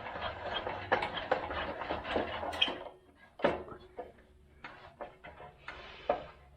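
Metal parts of a table saw being handled: a dense scraping rattle for about three seconds, then scattered clinks and knocks.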